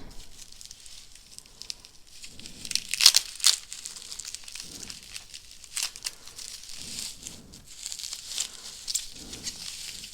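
Shipping packaging being opened by hand: crinkling and tearing in irregular rustles, with the loudest tearing crackles about three seconds in.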